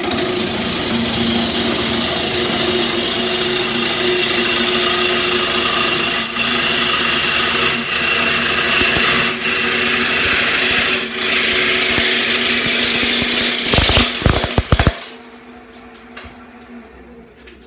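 Wood lathe spinning a half-log bowl blank while a gouge roughs it toward round: a loud, steady cutting hiss over the lathe's hum, dipping briefly a few times as the tool eases off. Near the end come a few heavy knocks, then the cutting stops and the lathe runs on more quietly.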